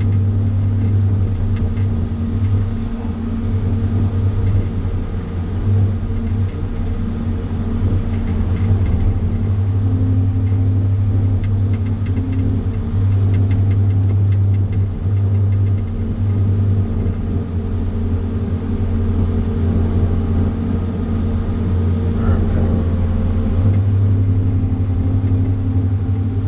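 Engine running steadily with a strong low hum, swelling and easing in level several times.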